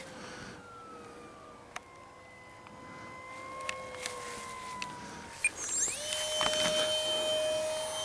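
TechOne Neptune flying wing's 64 mm electric ducted fan whining in flight. The whine sinks slowly in pitch, then about six seconds in jumps higher and louder as the jet comes close.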